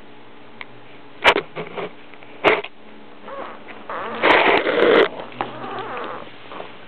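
A Perro de Presa Canario sniffing and snuffling right at the microphone, with two sharp knocks early on and a louder rush of breath noise about four seconds in.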